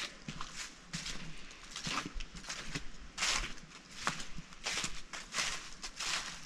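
Footsteps crunching on gravel and dry leaf litter at a steady walking pace, a little under two steps a second.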